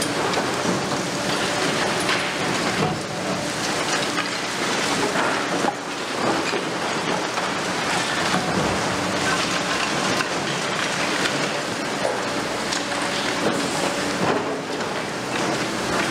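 Liebherr R 950 Demolition long-reach excavator at work on a building: its 200 kW diesel engine running steadily under a dense, continuous crackle and clatter of concrete and rubble being broken off and falling.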